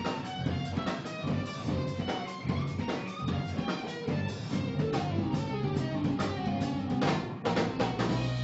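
Live big band playing a jazz-rock piece: saxophones over electric guitars, electric bass and drum kit. A cluster of loud drum hits comes about seven seconds in, then a low note is held.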